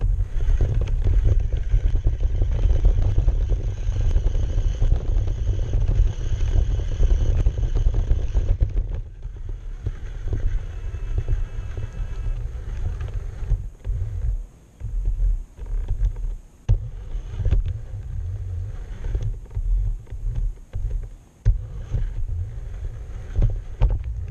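Battery-powered RC car driving over lawn grass, heard from a camera mounted on its body: a loud low rumble from the chassis and tyres with a steady high motor whine for the first eight seconds or so, then stop-start spurts of driving.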